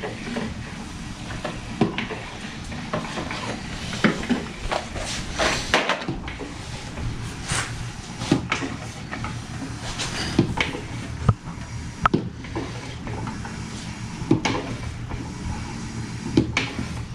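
Irregular clicks, knocks and clatter of hand tools and hose fittings being handled, over a steady low hum.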